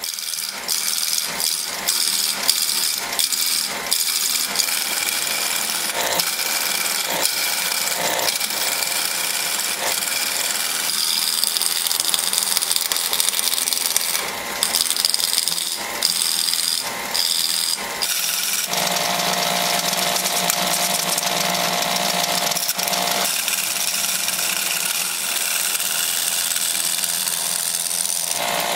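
Wood lathe spinning a square 4x4 wooden blank while a hand-held turning chisel cuts it down to round: a loud, rattling cut made of rapid knocks for most of the first two-thirds. From about 19 seconds in it settles into a steadier cutting sound with a steady hum.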